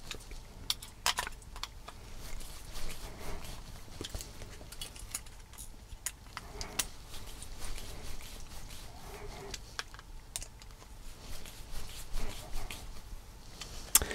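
Phillips screwdriver driving small screws into a plastic servo mount: scattered light clicks and ticks of the driver tip and the handled parts.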